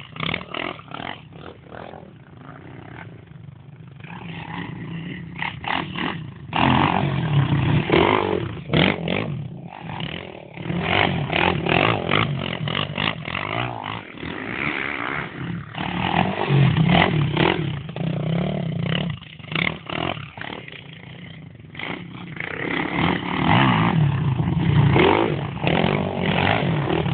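Quad bike engine revving up and easing off over and over as it is ridden round a track, the level rising and falling every few seconds, with frequent short knocks and rattles.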